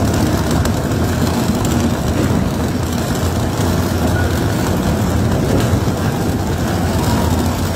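Steady, loud low rumble of heavy tunnelling machinery at a rock face being broken through, with no pauses or sudden impacts.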